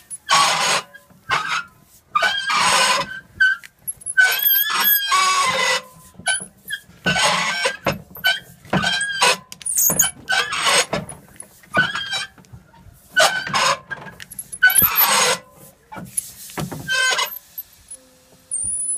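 Chandler & Price 10x15 platen press printing: a rustling clatter about every two seconds as the press cycles, with high squeaks in between. It stops about three-quarters of a second before the end.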